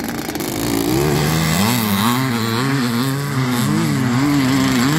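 Several vintage motocross motorcycle engines revving, their pitch rising and falling as the riders climb a steep sand hill under load.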